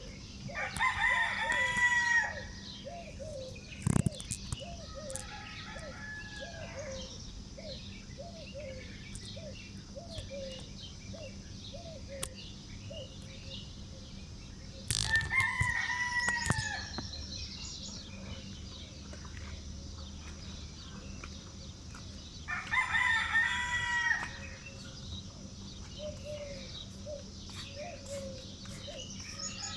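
A rooster crows three times, each crow about two seconds long and ending on a falling note: once at the start, once about 15 seconds in and once about 22 seconds in. Between the crows, other birds keep up a run of short repeated calls and chirps.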